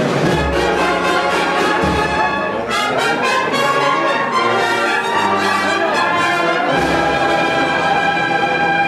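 Brass band playing a Holy Week processional march, with held brass chords.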